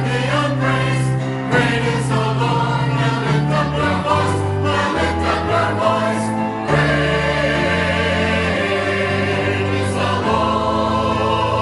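Church choir singing a praise medley, with bass notes of an instrumental accompaniment underneath.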